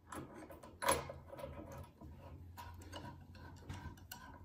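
Screwdriver turning a large slotted screw into the mortiser's handle housing to tighten it: a run of small irregular clicks and scrapes as the blade works in the slot, with one louder click about a second in.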